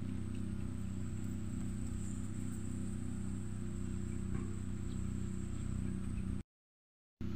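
A steady high-pitched insect drone over a continuous low hum; the sound cuts out completely for under a second near the end.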